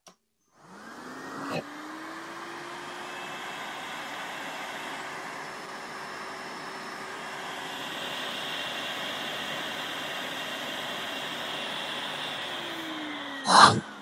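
Makita DVC150L hybrid vacuum cleaner running on two batteries, its motor spinning up with a rising whine about a second in and running steadily while a vacuum gauge disc seals its inlet for a suction test. There is a knock shortly after it starts and a louder knock near the end, after which the motor winds down with a falling whine.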